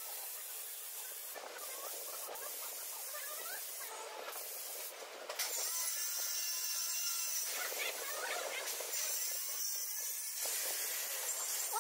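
Steady hiss of compressed air, as from a pneumatic glue spray gun used on upholstery foam. It gets louder and sharper about five seconds in.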